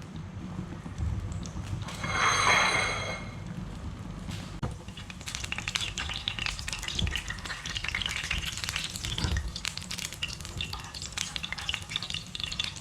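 Egg-dipped bread roll frying in a pan of hot oil: a brief loud hiss about two seconds in, then steady sizzling with crackling and spitting of the oil from about five seconds on.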